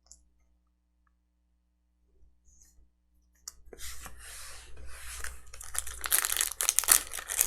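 A baseball card pack's wrapper being torn open and crinkled. It starts about halfway through after a few seconds of near silence and gets louder toward the end.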